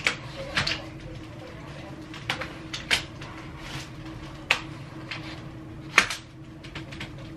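Cybex Gazelle S twin stroller being handled at its handlebar: irregular sharp clicks and knocks from the frame, the loudest about six seconds in, over a steady low hum.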